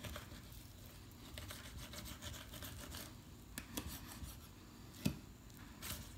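Fillet knife slicing through raw flounder on a wooden cutting board: a run of faint scratchy scraping strokes, with one sharper knock about five seconds in.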